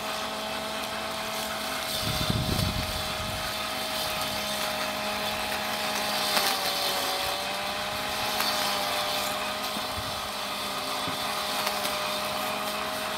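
Ambrogio L50 robotic lawnmower running across grass with its electric blade motor on: a steady whine that dips slightly in pitch about halfway through.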